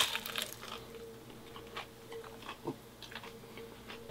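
A person chewing a mouthful of battered, deep-fried bacon cheeseburger, with faint, irregular crunches and mouth clicks.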